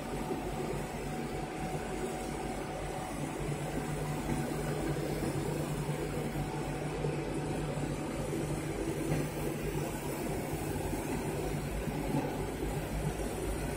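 Fabric laser cutting machine running as it cuts printed sportswear fabric: a steady mechanical hum and whir with a faint high whine over it.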